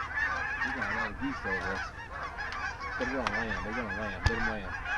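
A large flock of geese calling as it circles low overhead, a constant chatter of many overlapping honks and yelps, with lower, wavering calls standing out twice. A single sharp click comes near the end.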